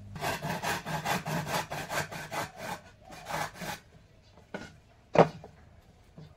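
A hand tool working wood with quick back-and-forth strokes, several a second, for about four seconds. A lull follows with two sharp knocks, the second one the loudest sound.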